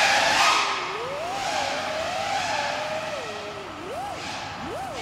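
FPV freestyle quadcopter's brushless motors and props whining under a rushing hiss, the pitch swooping up and down with the throttle, and two quick throttle punches near the end.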